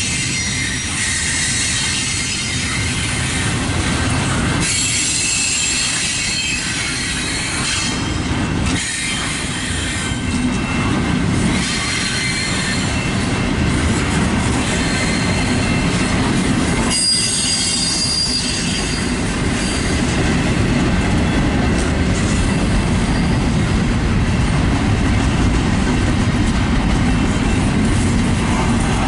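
Double-stack intermodal container train's well cars rolling past: a steady rumble of steel wheels on the rails, with high-pitched wheel squeal coming and going over it.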